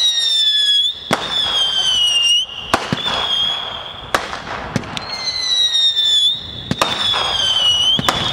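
Fireworks whistling: a string of shrill, overlapping whistles, each sliding slightly down in pitch over a second or two, with sharp cracks going off between them.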